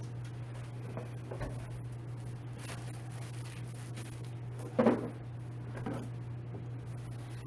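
Chair parts and packaging being handled while unpacking a box: a few soft knocks and rustles, with one louder knock about five seconds in, over a steady low hum.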